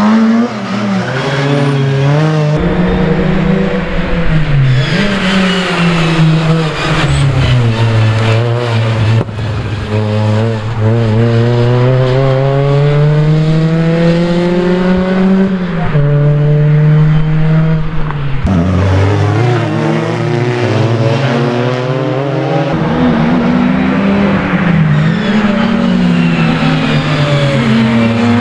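Ford Fiesta ST rally car's four-cylinder engine driven hard, its pitch climbing through each gear over several seconds and dropping sharply at shifts and lifts. Tyres squeal at times in the tight turns.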